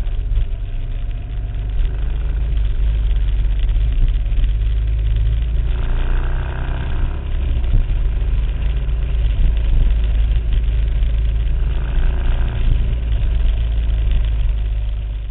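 Motorcycle engine running steadily at low speed, a loud, deep exhaust note, with brief higher-pitched additions about six seconds in and again near twelve seconds.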